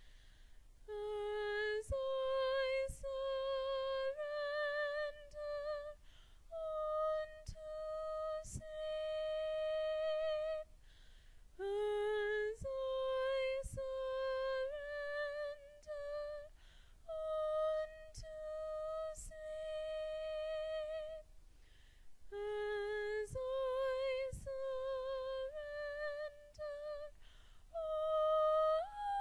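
A single unaccompanied female soprano voice singing the second soprano line of a slow choral piece, holding long notes with a slight vibrato in phrases separated by short pauses for breath.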